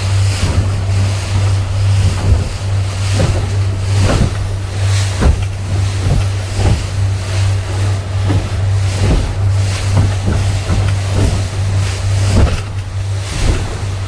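Speedboat engine running steadily at speed. The hull thuds over and over, every half second to a second, as it slaps on choppy river waves, with wind and spray rushing over the microphone.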